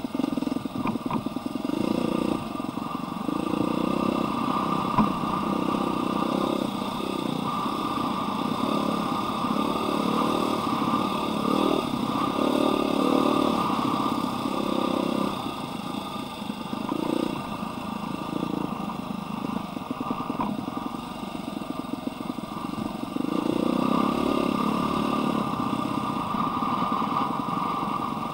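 Husqvarna dirt bike engine running under way, its pitch rising and falling over and over as the throttle is worked, with clatter over the rocky trail and one sharp knock about five seconds in.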